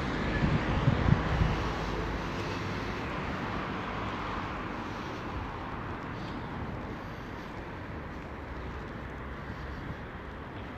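Steady rush of distant city traffic, slowly fading away.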